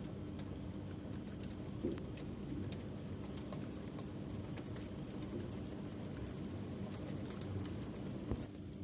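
Rain falling hard, with many small drops ticking on the window glass.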